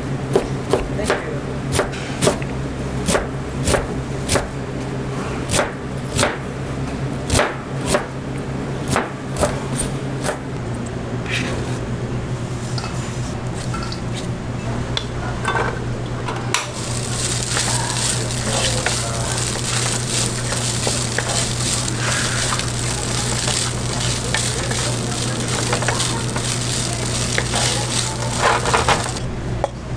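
A kitchen knife chops cabbage on a plastic cutting board, about two knocks a second for the first ten seconds. Then comes scraping and mixing in a steel bowl. From about halfway, diced ham sizzles as it fries in a pan, stirred with a wooden spatula, until the sizzle cuts off near the end. A steady low hum runs underneath throughout.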